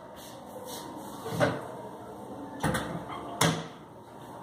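Three short knocks and clunks about a second apart, the sound of kitchen things being handled and set down, like a cupboard door or bottle.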